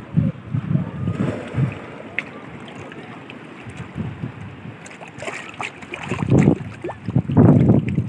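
Shallow waves washing over rocks, with wind gusting on the microphone; the gusts come loudest near the end.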